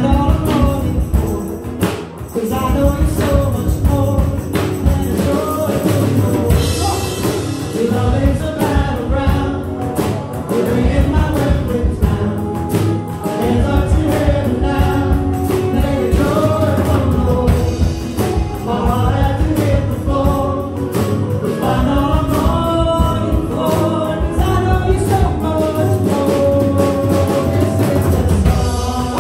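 Live worship band playing and singing a song: several voices singing together over acoustic guitar, keyboards and a drum kit.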